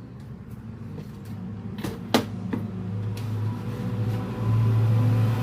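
A few sharp clicks and knocks of the TV's plastic frame and parts being handled and fitted back around the panel, about two seconds in. Under them runs a steady low hum that grows louder toward the end.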